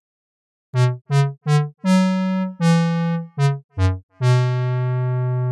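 A synthesized keyboard melody playing one note at a time, starting after a brief silence. It runs three short notes, two longer ones, two more short ones dipping lower, then one long held note that stops near the end.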